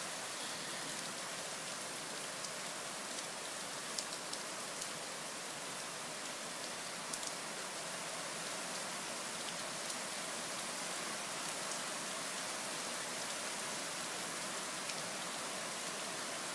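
Thunderstorm downpour: a steady hiss of rain, with scattered sharper drop hits.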